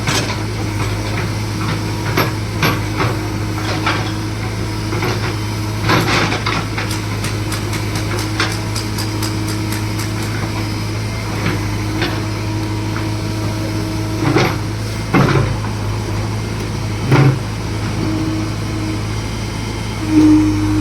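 JCB excavator's diesel engine running steadily, with scattered knocks and clanks and a quick run of ticks in the middle.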